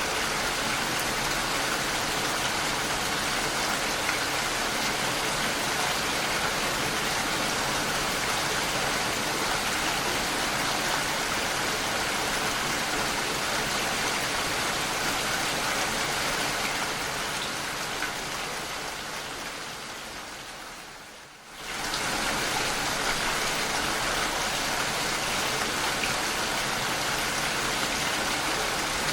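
Steady rain falling and pattering on surfaces. About two-thirds of the way through, the rain fades down to a brief low point, then cuts straight back in at full strength.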